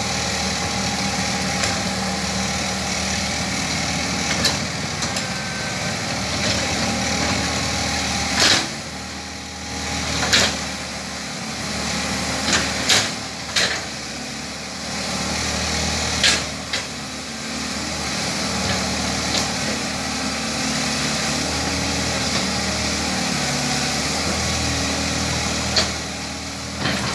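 Hydraulic excavator's diesel engine running under working load, its note dipping and rising a few times, with about half a dozen sharp knocks and cracks through it.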